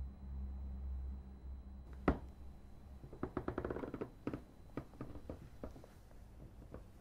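An interior door handle being worked: one sharp click about two seconds in, then a run of quick rattling clicks from the latch. A low drone fades out at the start.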